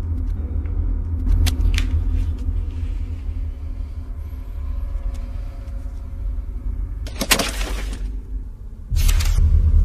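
Horror-film sound design: a low, steady rumbling drone, with a few sharp ticks about a second and a half in and two short hissing whooshes in the last three seconds.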